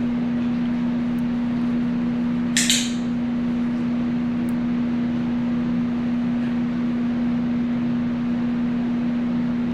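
Steady low electrical hum with room noise. About two and a half seconds in comes one brief, hissy, scratchy sound, and there are a couple of faint ticks.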